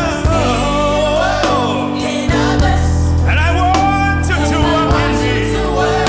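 Gospel worship music: a singer's voice gliding and bending through long notes over sustained chords and a steady bass.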